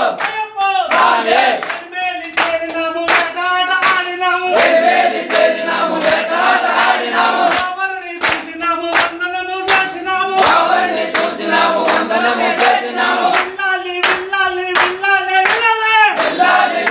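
A group of men singing and chanting loudly together in a devotional bhajan, over a regular sharp beat.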